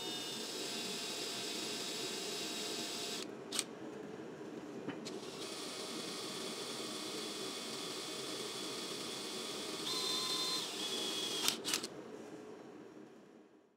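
Cordless drill boring a hole through steel angle iron: a steady whine and grinding hiss from the bit cutting metal. It pauses briefly with a click about three seconds in, runs again, rises in pitch near the end, then stops after a few clicks.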